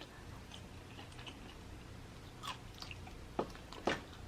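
Close-miked mouth sounds of a person chewing a fried chicken wing: soft, wet chewing with a few short smacking clicks, mostly in the second half.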